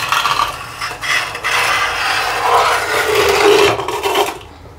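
A knife blade scraping old silicone sealant out of the joint between a steel bathtub and the wall tiles: a loud rasping in a few short strokes, then one long stroke lasting about three seconds that stops shortly before the end.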